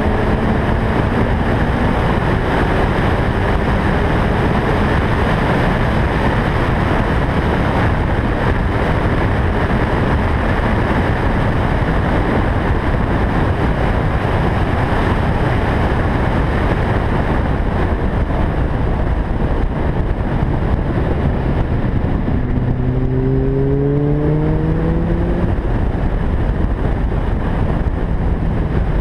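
A 2011 Lotus Elise at speed on a racetrack: a heavy rush of wind and road noise over the microphone, with the car's four-cylinder engine running underneath. About three quarters of the way through, the engine rises clearly in pitch as the car accelerates.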